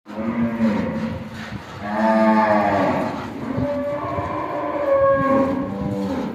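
Cattle mooing: several long, drawn-out moos one after another.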